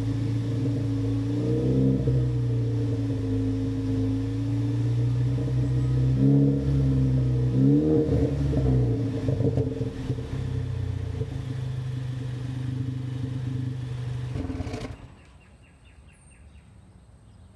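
2016 Ford Focus ST's turbocharged 2.0-litre four-cylinder idling through a Ford Performance cat-back exhaust, with a short rev about two seconds in and two more around six to eight seconds in. The engine sound cuts off about fifteen seconds in.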